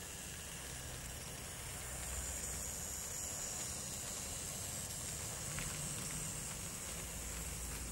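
DJ Models J94 00 gauge model locomotive and its train of vans running along the track, a steady, faint hiss-like running noise that grows a little louder after about two seconds, with a few faint clicks around the middle.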